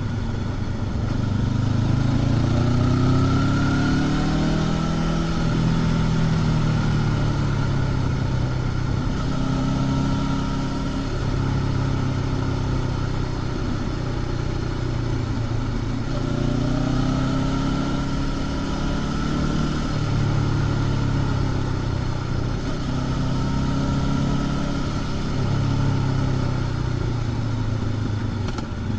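Honda CB500X's parallel-twin engine through its stock exhaust, ridden along at speed. The engine note rises and falls several times as the rider opens and closes the throttle.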